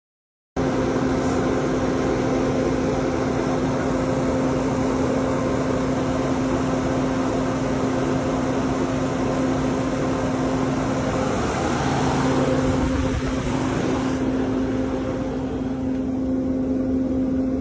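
PACCAR MX-13 diesel engine idling steadily with an even hum, running again after its fuel pump replacement.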